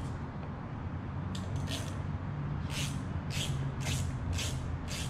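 Short rasping strokes, about two a second, from a hand tool driving in the tail-light mounting screws on a C5 Corvette, over a steady low hum.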